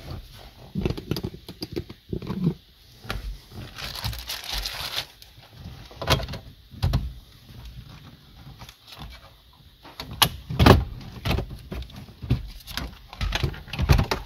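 The 2009 Scion xB's plastic centre dash trim and factory radio are being pulled out by hand: a run of irregular clicks, knocks and plastic rattles as the clips let go. About four seconds in there is a scraping rush lasting about a second.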